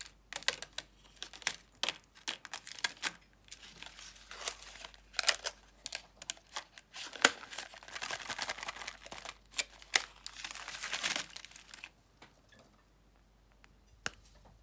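Thin clear plastic food trays crinkling and clicking as they are handled, in irregular crackly bursts with many sharp clicks. The sound turns much quieter near the end, apart from one sharp click.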